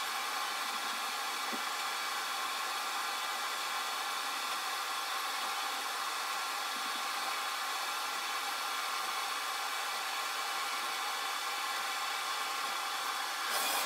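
A CNC router running a diode laser engraving job, giving a steady fan-like hiss with faint steady tones in it. A brief high hiss comes near the end.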